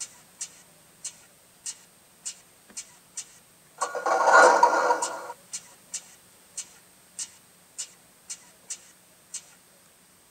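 Sound effects from the Protosound sound system of an MTH HO-scale SD70ACe model locomotive, played through its small speaker: a steady series of sharp clicks, a little under two a second, with one louder noisy burst lasting about a second and a half about four seconds in.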